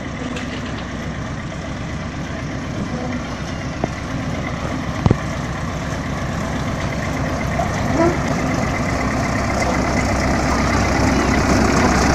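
Miniature park train's locomotive engine running as the train approaches along its track, growing steadily louder. A couple of sharp clicks sound around the middle.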